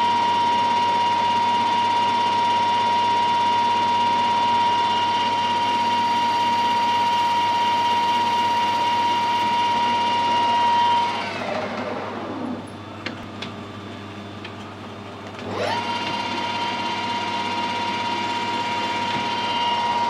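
Metal lathe running with a steady high whine from its drive while it turns an aluminium bush. About 11 s in the spindle is switched off and the whine falls away as it runs down. There are a couple of clicks while it stands still. About 15.5 s in it starts again and the whine rises back to a steady run.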